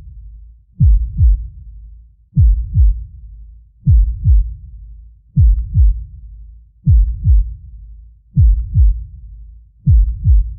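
Deep heartbeat sound effect: a slow, steady lub-dub, two low thumps close together in each beat, repeating about every one and a half seconds (about 40 beats a minute).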